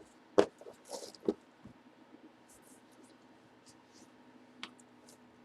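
Trading cards and their packaging being handled: a few sharp clicks and a brief rustle, over a faint steady hum.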